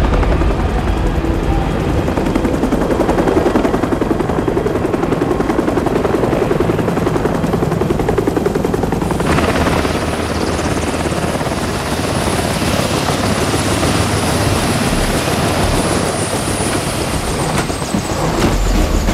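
Bell UH-1 Huey helicopter's two-blade rotor beating in a fast, steady chop as it flies low and sets down, sounding brighter from about halfway. Near the end a high turbine whine falls steadily in pitch.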